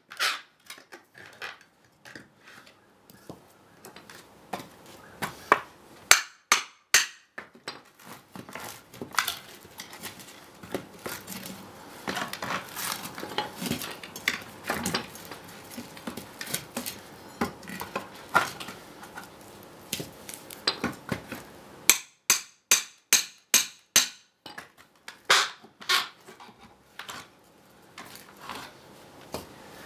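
Claw hammer striking a steel pry bar to drive it between a wooden pallet base board and its spacer block, each blow a sharp metallic clink. A few single blows give way to a stretch of lighter, irregular knocks. Past the two-thirds mark comes a fast run of hard strikes, about three a second.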